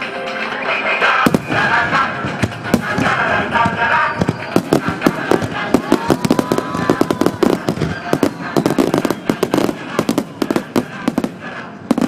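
Aerial fireworks bursting in a rapid barrage of bangs and crackles, with a whistling shell gliding in pitch about six seconds in. Music from the show's loudspeakers is heard under the first few seconds. The bangs sound distorted, as they are recorded on a compact digital camera.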